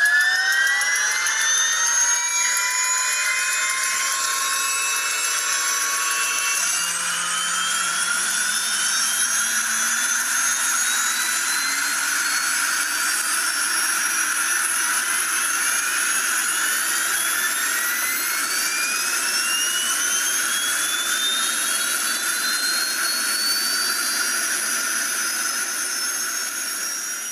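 Aircraft turbine engine spooling up: several whining tones climb in pitch, fast at first and then slowly and steadily, over a constant rushing hiss.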